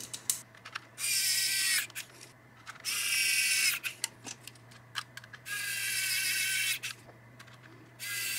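Pen-style electric precision screwdriver driving small screws into a drone's plastic canopy: four short bursts of high-pitched whirring of about a second each, with small clicks between them as the bit is moved from screw to screw.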